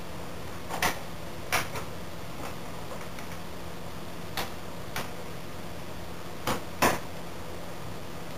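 Scattered sharp clicks and knocks of hand tools and metal parts as a motorcycle is reassembled, about seven in all at uneven intervals, over a steady low hum.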